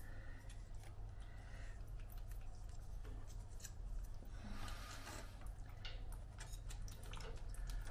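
PTFE thread-seal tape being pulled off its reel and wound onto the threads of a radiator valve fitting: a run of small crackles and ticks, with a longer rustle about five seconds in. A steady low hum runs underneath.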